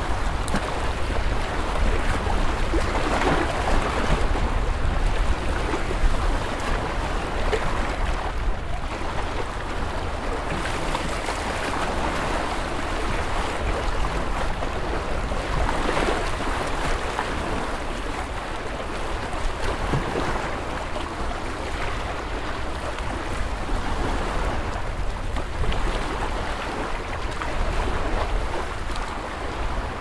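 Lake water washing against the shore in small waves, the wash swelling every few seconds over a steady low rumble.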